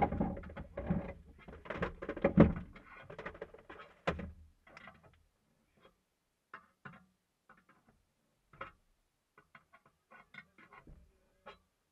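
Knocks, thumps and clatter of a punctured wheel being changed on a stopped rally car, with tools, wheel and jack working against the car body. A dense run of thumps for about the first four seconds, the loudest a couple of seconds in, then scattered light clicks.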